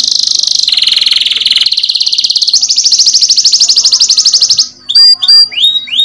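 Domestic canary singing a song of fast rolling trills that shift up and down in pitch. A brief pause near the end is followed by quick rising chirps.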